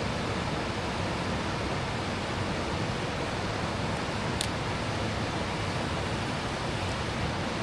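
Steady rushing of a mountain stream's water, with one brief faint click about four and a half seconds in.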